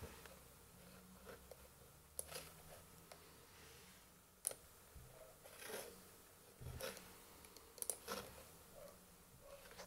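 Near silence with a faint low hum and a handful of short, sharp clicks and small rustles scattered through it.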